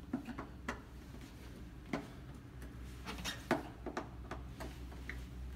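Flathead screwdriver turning an adjustment screw in an exterior door's adjustable threshold, giving irregular small clicks and ticks of metal on metal. Turning the screw to the right raises the threshold to close a gap under the door.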